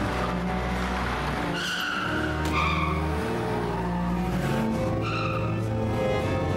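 Car tyres squealing in short skids, once about two seconds in and again about five seconds in, over a car engine running hard during a chase.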